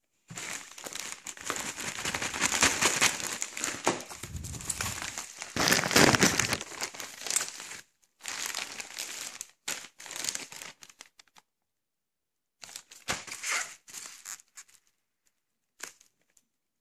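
Plastic packaging crinkling as a plastic mailing bag is opened and the bubble-wrapped package inside is pulled out. It runs in one long stretch of rustling for about the first eight seconds, then in shorter stop-and-start bursts, with a last brief rustle near the end.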